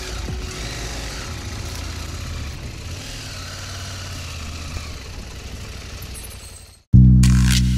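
Adventure motorcycle engine running steadily, with a haze of wind or road noise, fading out near the end. Loud music with a heavy bass line starts abruptly in the last second.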